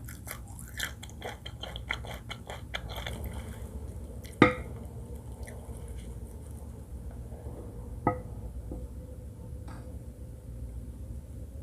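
Close-up chewing of fried rice and seafood for the first few seconds, then two sharp clinks of a utensil against a dish about four seconds apart, each ringing briefly.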